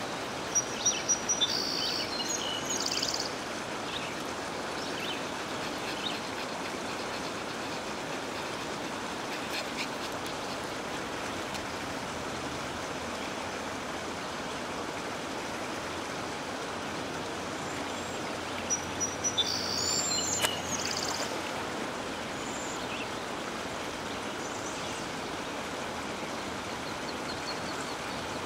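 Steady rush of a flowing river, with a cairn terrier barking in two quick runs of about four sharp barks, one right at the start and one about two-thirds of the way through.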